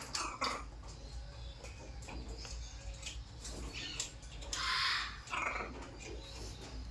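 Parrot squawking: a couple of short calls near the start, then one longer, louder squawk about two-thirds of the way in, followed quickly by a shorter one, over a steady low hum.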